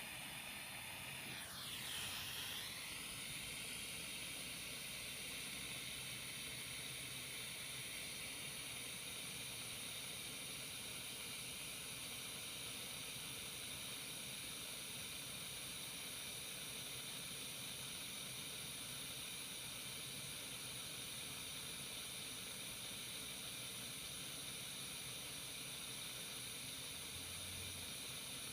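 Dremel Versatip butane soldering iron hissing steadily as it burns gas to heat a wire for silver soldering, with a brief falling-then-rising whistle about two seconds in.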